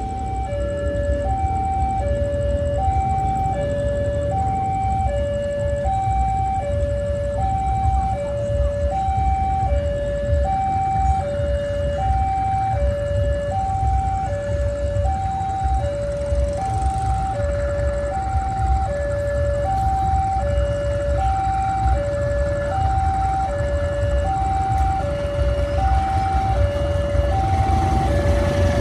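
Railway level-crossing warning alarm sounding: an electronic two-tone signal that alternates steadily between a higher and a lower tone, each held about three-quarters of a second. Under it a low rumble grows louder near the end as the diesel-hauled train approaches the crossing.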